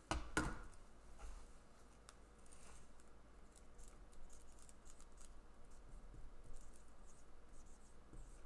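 Pen writing figures on a sheet of paper on a board: faint, irregular scratching strokes. Near the start come two sharp knocks as the board is set down.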